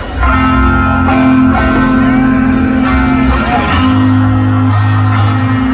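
Live rock band playing loud through a concert PA, coming in just after the start: electric guitar holding sustained notes over a low bass note, with bending, gliding guitar notes in the middle.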